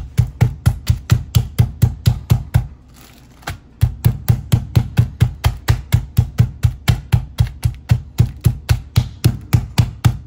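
Meat-tenderizer mallet pounding chicken breasts in a zip-top bag to flatten them: a fast, even run of dull thuds, about four or five a second, with a pause of about a second near the third second before the pounding resumes. The folded towel underneath deadens the blows.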